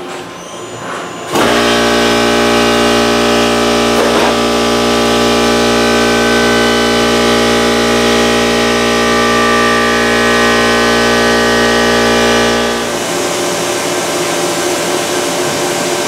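CNC milling cutter cutting aluminium under flood coolant, starting abruptly about a second in with a loud, steady whine of several held tones over a low hum. Near the end it shifts to a rougher, slightly quieter cutting sound.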